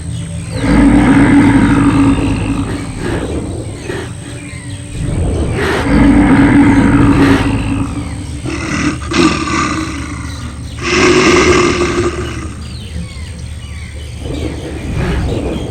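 A large animal calling three times, each call long, about two seconds, with a fainter fourth call near the end.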